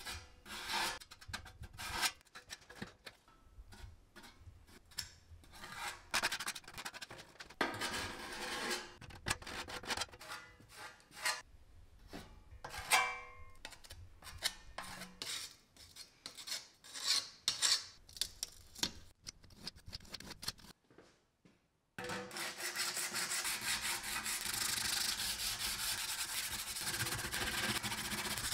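Sandpaper rasping over hardened filler on a sheet-metal cabinet as it is sanded by hand: irregular scraping strokes, then, after a brief pause about three quarters of the way through, a fast, steady run of scrubbing strokes.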